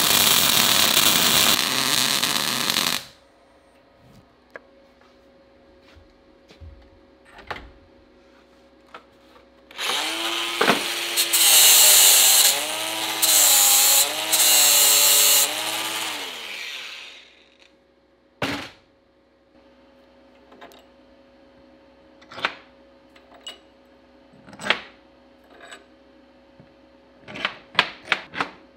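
Arc-welding crackle for about three seconds. After a pause, an angle grinder with a flap disc grinds steel bolts held in a bench vise for about six seconds, its whine dipping and wavering as it is pressed into the metal. Scattered light metal clicks and taps follow as the work is handled on the steel bench.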